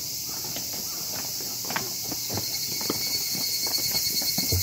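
Footsteps on a hard path, short irregular knocks that come faster and louder in the second half, over a steady high hiss.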